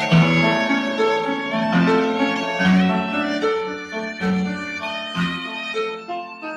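Violin playing a classical melody live, a line of held notes changing every half second or so.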